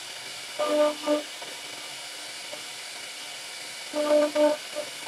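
CNC router spindle carving a wooden door panel. A steady hiss runs throughout, with short pitched whines as the cutter bites: two about a second in and three in quick succession near the end.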